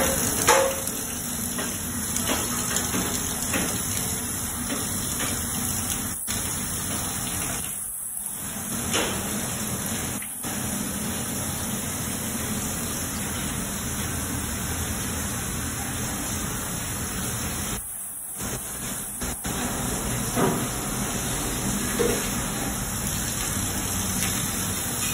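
Water running steadily from a faucet into a stainless steel sink compartment, a continuous splashing hiss that drops out briefly a couple of times, with a few light knocks.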